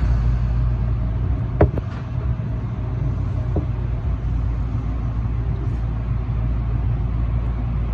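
Tobu 9000 series electric commuter train heard from inside the car: a steady low rumble, with a sharp click about a second and a half in and a fainter one a couple of seconds later.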